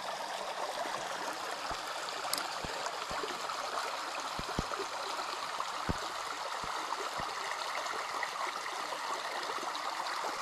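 Small woodland stream running steadily over rocks into a pool, an even rushing trickle, with a few faint soft knocks now and then.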